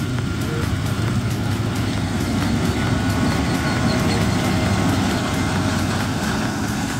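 John Deere X9 1100 combine harvester running under load while harvesting corn, its engine and threshing machinery making a steady, continuous drone.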